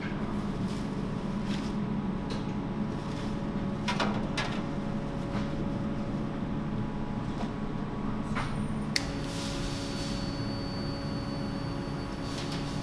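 Steady mechanical hum of kitchen equipment, with a few brief rustles and knocks as plastic wrap is pulled off a chicken shawarma cone on a vertical rotisserie. About nine seconds in there is a sharp click and the hum changes, with a thin high whine added.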